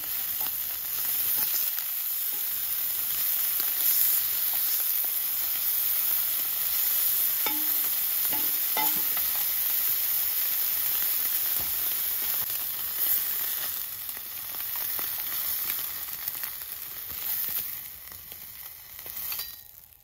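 Slices of marbled wagyu beef sizzling steadily in a steel frying pan over a portable gas stove. The sizzle dies down over the last few seconds as the pieces are lifted out.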